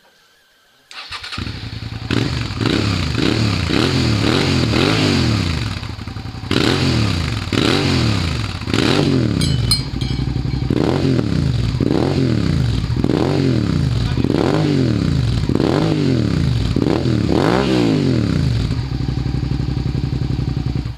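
Suzuki SV650S 645 cc V-twin through a Mivv Oval short exhaust, starting about a second in and blipped again and again from idle, each rev rising and falling quickly, then idling over the last couple of seconds. The first revs are with the dB-killer baffle fitted in the silencer, the later ones with it removed.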